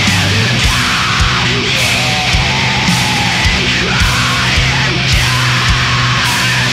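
Sludge metal band playing: distorted guitars and bass with a steady kick drum and cymbals.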